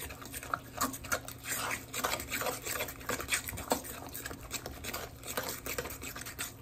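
A utensil stirring and scraping through thick, wet oatmeal batter in a stoneware mixing bowl, in many quick, irregular strokes.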